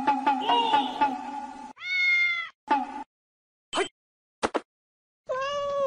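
Domestic cat meowing: a drawn-out meow about two seconds in, a few short clipped calls, and another meow near the end. A quick pulsed sound that fades out comes first.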